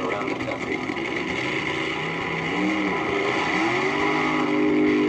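A nitro-burning AA fuel dragster's engine running. The pitch swings up and down about halfway through as it is revved, then it holds steady at a higher pitch.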